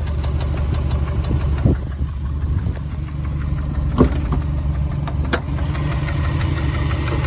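2013 Subaru WRX STI's turbocharged 2.5-litre flat-four engine idling steadily with an obvious knock from the lower part of the motor, a bottom-end knock on a car with only 76,000 miles. A few sharper clicks stand out, one about four seconds in and another a little over a second later.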